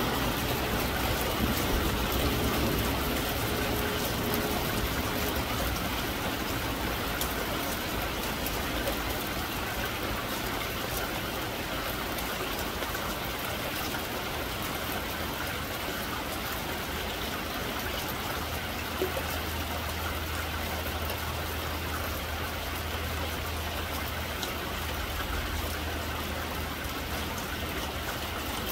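Steady rain falling on a corrugated metal roof and trees, an even hiss of rain threaded with many small drop ticks. It is a little heavier in the first few seconds. A faint low hum comes in about two-thirds of the way through.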